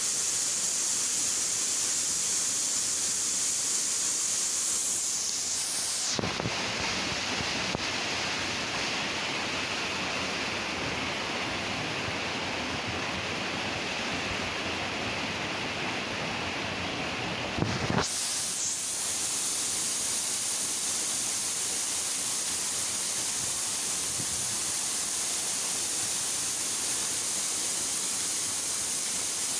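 Steady rush and splash of a small waterfall falling into a rock pool, with a constant high hiss over it. From about six seconds in until about eighteen seconds in, the rush turns fuller and deeper and the hiss drops away.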